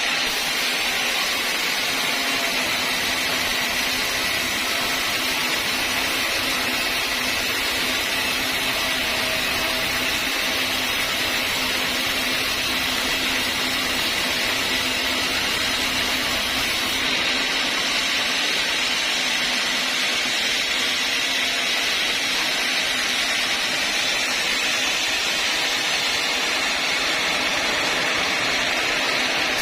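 Sawmill saw running steadily: a constant whirring machine noise with a steady low hum underneath.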